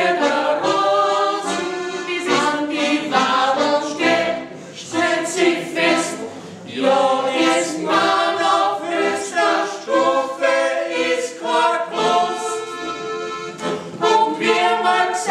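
A small mixed group of voices singing together, in phrases with brief breaks between them.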